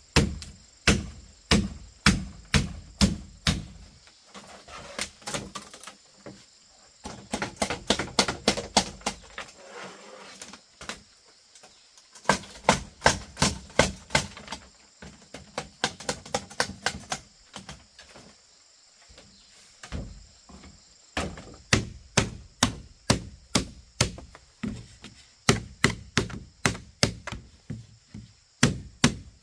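A blade chopping bamboo: runs of sharp, evenly paced strikes, about two to three a second, broken by short pauses.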